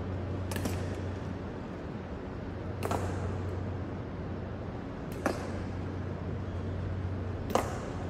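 Honor guards' boots striking a polished stone floor in a slow ceremonial march: four sharp, ringing clacks about two and a half seconds apart. A steady low hum runs underneath.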